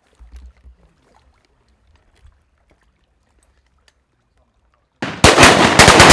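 Several shotgun blasts in quick succession, starting suddenly about five seconds in, as hunters shoot at ducks flying over flooded timber; each shot echoes and the echo trails off.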